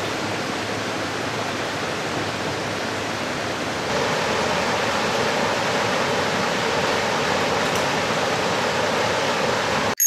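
Mountain river rushing over boulders: a steady rush of water that grows a little louder about four seconds in.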